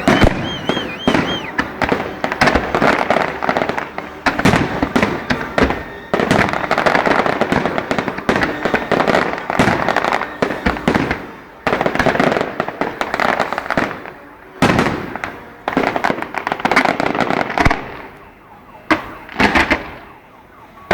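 Aerial fireworks display: a dense barrage of bangs and crackling, with a few short warbling whistles about a second in. The barrage thins out near the end to a handful of separate bangs.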